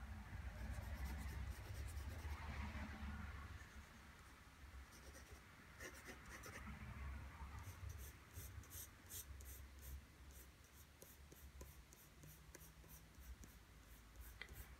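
Faint scratching of a pencil shading on drawing paper: long soft strokes, then a quick run of short hatching strokes about halfway through.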